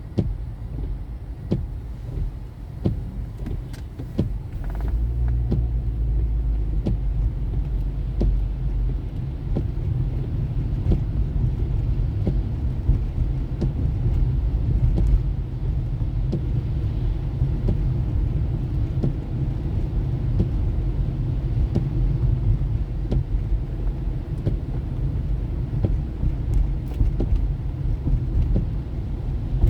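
Car driving on city streets: a steady low road and engine rumble that grows louder about five seconds in.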